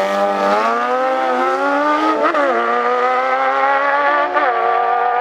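Sport motorcycles accelerating hard from a drag-race start, the engine note climbing steadily in pitch through the gears, with an upshift about two seconds in and another about four and a half seconds in, each dropping the pitch before it climbs again.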